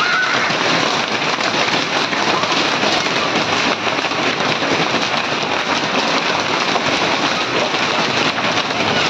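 Heavy hail pelting down: a dense, steady clatter of countless small hailstones hitting the ground and foliage.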